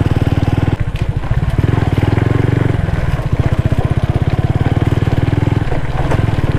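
Bajaj Pulsar 135's single-cylinder four-stroke engine running steadily while the motorcycle is ridden, with fast, even firing pulses. It gets louder for about a second around two seconds in as the throttle opens.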